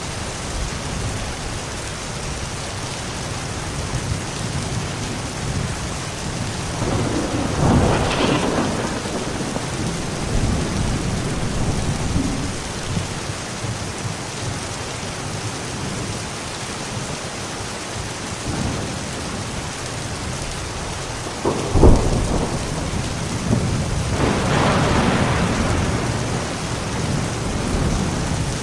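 Thunderstorm: steady rain throughout, with a roll of thunder about a quarter of the way in. About three quarters of the way in comes a sharp, loud thunderclap, then a longer rumble.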